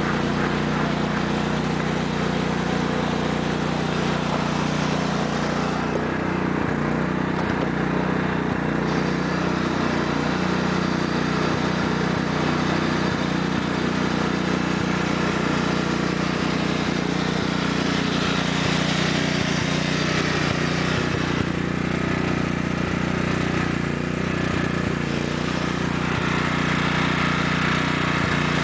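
A 1993 Sears Craftsman lawn tractor's 14 hp Kohler OHV engine running at a steady, unchanging speed as the tractor drives across an icy driveway.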